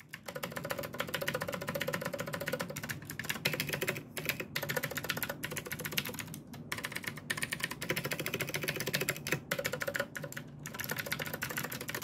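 Typing on a stock Keychron C1 tenkeyless hot-swappable mechanical keyboard with no mods, a rapid stream of key clicks broken by a few brief pauses. The stabilizers are not very pingy, though the typist hears some ping in the space bar.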